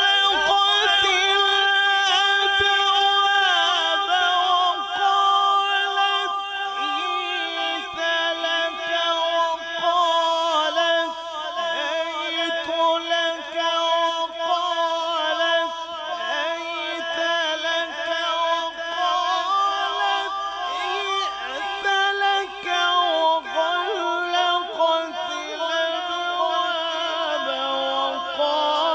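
A man chanting Quran recitation (tilawat) in the melodic tajweed style into a microphone. The voice is drawn out in long, wavering held notes with ornaments and has almost no break.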